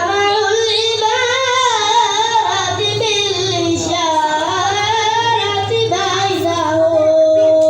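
A boy's solo voice singing a samaa, a sung devotional chant, in a winding, ornamented melody that settles on a long held note near the end, over a low steady hum.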